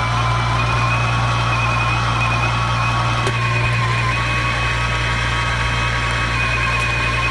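Hot-air rework station running steadily during reflow soldering of a BGA CPU chip: a constant blower hum with a thin, steady whine above it.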